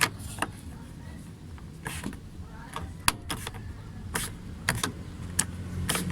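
Irregular clicks and knocks of plastic and metal lock parts being pushed and fitted into place inside a car door, about ten in all, over a steady low hum.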